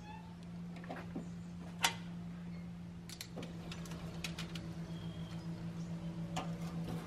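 Scattered sharp clicks and clinks of metal tongs against a vertical propane smoker's wire racks and a metal baking sheet as smoked Cornish hens are lifted out, the loudest about two seconds in and several more near the end. Under them runs a steady low hum that starts pulsing rapidly about halfway through.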